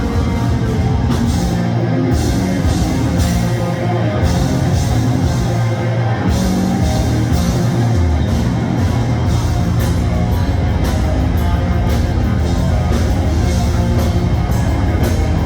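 Live blackened thrash metal band playing through a PA: distorted guitars, bass and pounding drums with fast cymbal hits, recorded loud from the audience.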